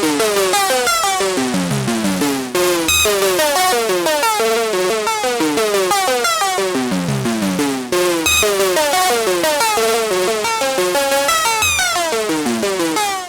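Dreadbox Dysmetria analog synthesizer playing a rapid sequence of short notes, with pitch slides between them and a little reverb. The pattern breaks briefly and starts again twice.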